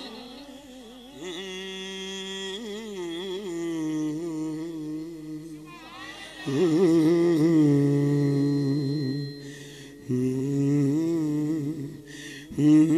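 Naat singing: a man's voice holding long wordless, hummed notes with wavering pitch, with no words, louder from about the middle.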